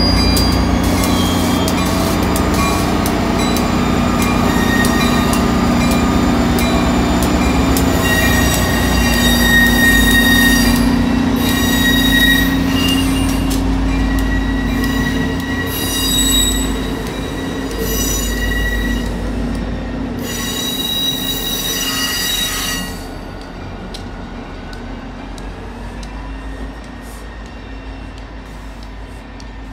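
Diesel-hauled passenger train passing slowly: the steady hum of a GP40-3H diesel locomotive's engine and the rolling of the coaches, with the wheels squealing in high, steady whines through much of the middle. The sound falls away after about 23 seconds as the train pulls away.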